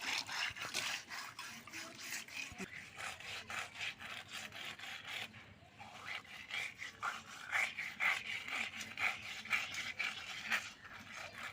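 Rapid, rhythmic scraping or rubbing strokes, about four a second, with a short pause about six seconds in.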